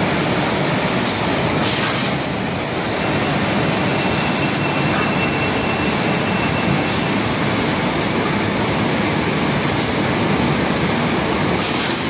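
YOCO MTM-108E sheet-fed machine running steadily: a loud, even machine noise with a high hiss. A faint thin whine sounds for a few seconds early on.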